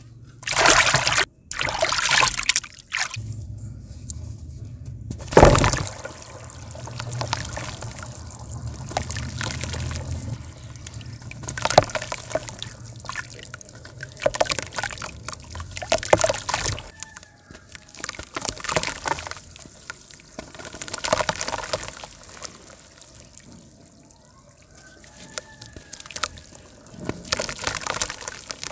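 Hands sloshing water in a plastic tub and crumbling chunks of dry mud into it: irregular splashes and trickles as pieces and dirt drop into the water. A loud thump about five seconds in.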